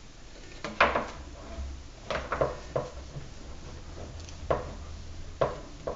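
A handful of sharp knocks and clicks from hard objects being handled on a tabletop, about six in all at irregular spacing, over a low steady hum.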